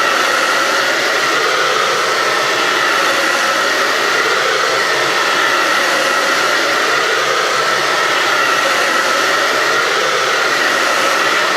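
Hot air gun blowing steadily with a high whine, heating the new iPad 2 digitizer's double-sided tape to soften it.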